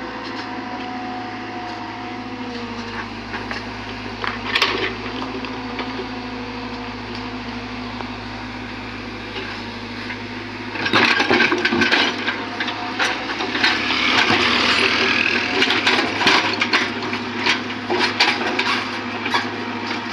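Excavator's diesel engine running steadily. About halfway through, loud scraping and clattering of rock and stone begins as the bucket digs into the rocky slope.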